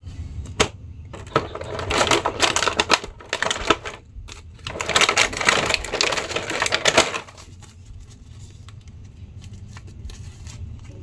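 Clear plastic packaging crinkling and crackling as hands handle and unwrap bagged toy action figures, in two long spells with a short pause between, then quieter handling near the end.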